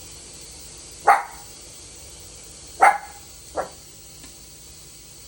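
Toy poodle barking at a vacuum cleaner: two sharp barks about two seconds apart, the second followed closely by a softer one.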